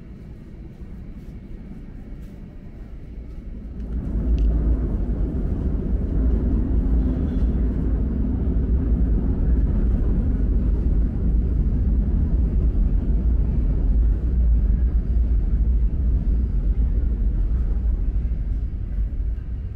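New York City subway train running: a low rumble that jumps suddenly louder about four seconds in and then holds steady, with a brief high squeal just after the jump.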